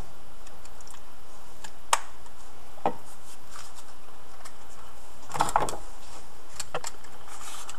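A few light clicks and taps of objects being handled on a workbench, as a small plastic squeeze bottle is set down and a matchbox is picked up. There is a sharp click about two seconds in, a smaller one about a second later, and a cluster of small clicks around five and a half seconds, over a steady background hiss.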